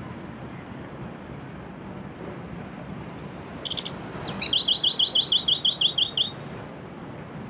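A bird calling over the steady wash of the sea. About halfway through it gives a few short high notes and a quick falling note, then a fast run of about a dozen repeated notes, some six or seven a second, which stops abruptly.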